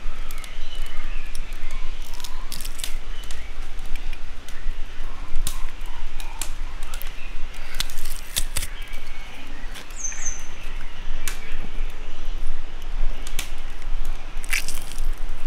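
Metal garlic press clicking and clacking as peeled garlic cloves are loaded and squeezed through into a glass bowl, in scattered sharp clicks, a few of them loud. Birds chirp faintly in the background.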